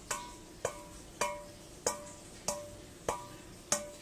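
Background music: a hollow wood-block-like percussion beat, one knock about every two-thirds of a second, alternating between a lower and a higher pitch.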